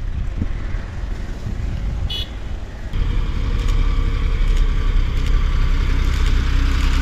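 A motor vehicle engine running with road noise, growing louder about three seconds in, with one brief high chirp just before.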